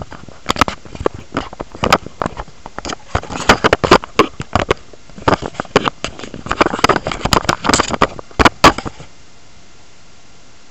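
Handling noise: a run of irregular clicks, knocks and rubbing against a phone's microphone as it is moved about, stopping suddenly about nine seconds in.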